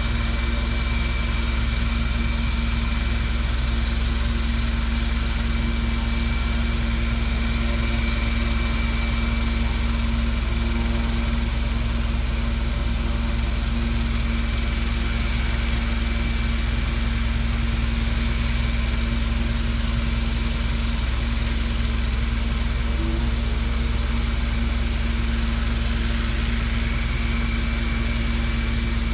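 Medical helicopter running on the ground at idle, its turbine whine and turning rotor making a steady, unchanging drone.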